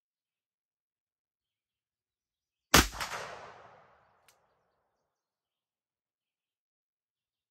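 A single shot from a Smith & Wesson Model 629 .44 Magnum revolver with a 6.5-inch barrel, firing a heavy handload, about three seconds in; the report echoes and dies away over a little more than a second. A faint click follows shortly after.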